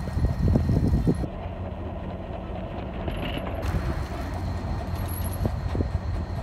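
Bicycle ride: wind rumbling on the phone's microphone along with the bike's rolling rattle, with a cluster of clattering knocks in the first second or so, then a steadier rumble.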